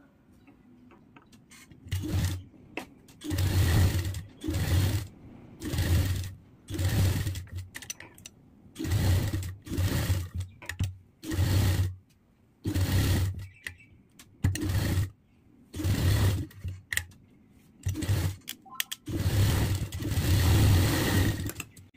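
Sewing machine stitching a canvas-backed kurti neck facing, run in many short stop-start bursts as the fabric is turned around the curve, with one longer run near the end.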